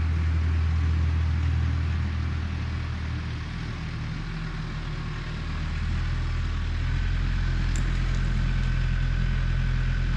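Tractor engine running steadily at idle, a low even hum.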